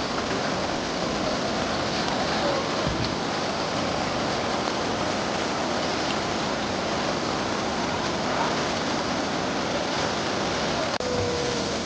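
Mountain valley stream swollen after rain, its water rushing steadily and loudly, with a brief dip about eleven seconds in.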